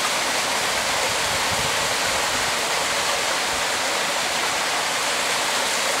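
Steady rush of running water in a koi pond water-change system, water pouring and splashing into the pools.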